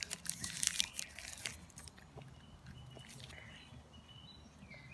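Crackling and crunching of a Skor bar, milk chocolate over hard, crisp butter toffee, handled in its wrapper and bitten into. It is loudest in the first second and a half, then there are a few sharp cracks.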